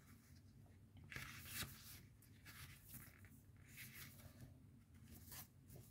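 Near silence: room tone with a few faint, brief rustles.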